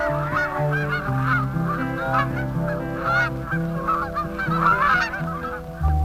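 A flock of geese honking over and over, the calls overlapping, with background music of long held notes underneath.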